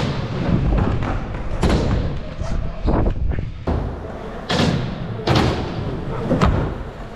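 Stunt scooter rolling over plywood ramps and a hard floor: a continuous low wheel rumble broken by several sharp thuds as the deck and wheels hit the surfaces.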